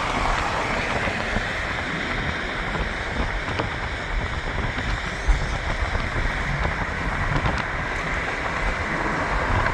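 Steady road and tyre noise with wind from a car driving along, a continuous low rumble.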